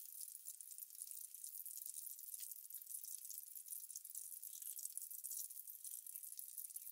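Battered fish fillets deep-frying in hot oil: a steady, fine crackling sizzle, freshly after the cool fish has gone into the fat.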